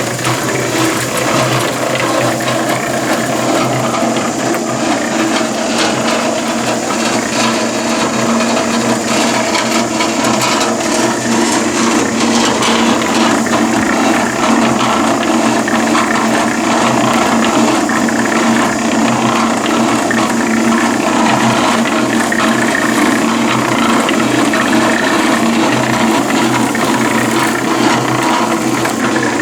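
Concrete mixer running, its drum turning with sand inside and its drive gears rattling steadily over the motor's hum.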